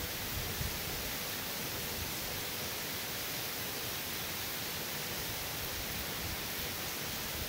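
Hurricane rain falling in a steady, even hiss.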